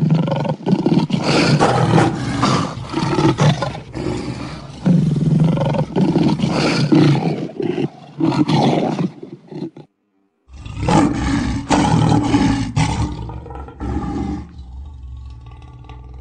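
Lion roaring: deep, rough roars in one long stretch of about ten seconds that cuts off abruptly. After a brief silence, another loud roar of a few seconds fades into quieter grunting.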